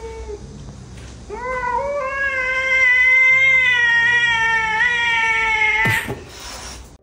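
Cat giving a long, drawn-out warning yowl, held steady for about four and a half seconds, during a face-off with another cat. It ends in a sudden hiss near the end.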